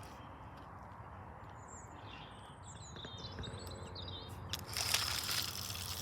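Outdoor ambience with small birds chirping in short calls for a few seconds, then a brief loud rustle about five seconds in.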